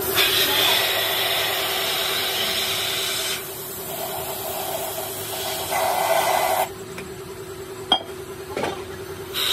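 Compressed-air paint spray gun hissing as it sprays red paint onto brake discs: a loud spray for about three seconds, then a softer one that stops about two-thirds of the way through. A click comes in the pause, and the spray starts again at the very end. A steady low hum runs underneath.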